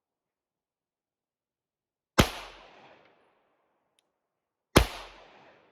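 Two gunshots about two and a half seconds apart, the first about two seconds in, each a sharp crack followed by an echo that trails off over most of a second.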